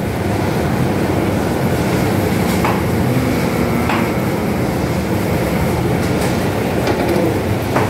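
Cotton seed dryer plant machinery running with a steady, loud mechanical rumble, broken by a few sharp metallic clinks.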